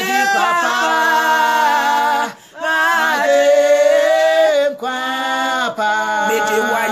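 Women singing a cappella, holding long notes, with brief pauses for breath about two and a half and five seconds in.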